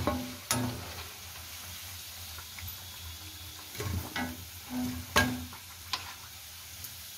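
Potato bread cutlets deep-frying in hot oil in a kadhai, a steady sizzle. Over it come several sharp clicks and knocks of a perforated metal skimmer against the pan and plate as the crisp, browned cutlets are lifted out.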